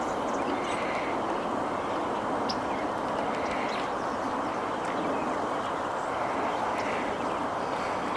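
Steady outdoor background noise, like distant traffic, with a few faint, short, high bird chirps.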